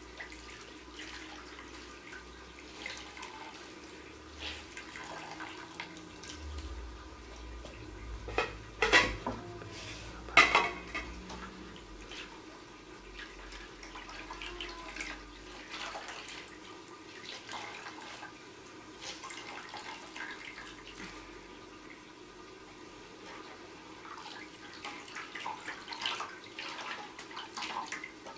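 Handfuls of cooked greens squeezed out over an aluminium pot, the wrung-out water splashing and dripping back into the pot. Two sharp clanks against the metal pot stand out a little over a third of the way in.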